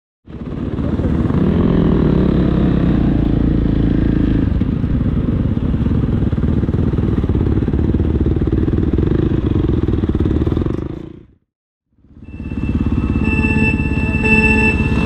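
Husqvarna FC 450 dirt bike's single-cylinder four-stroke engine running under way, muffled, with no sharp top end. It cuts off about eleven seconds in, then after a brief gap motorcycle engine sound returns, with a steady high whine over it near the end.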